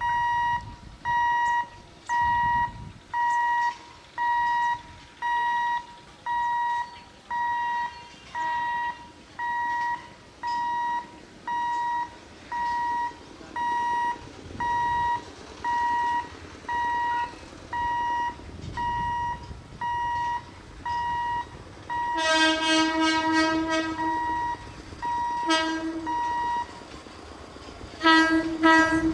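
Level-crossing warning beeper sounding a steady two-tone beep about once a second. Late on, the approaching ICF EMU local train sounds its horn in a long blast of about two seconds, a short toot, then another long blast. The beeping stops shortly before the last blast.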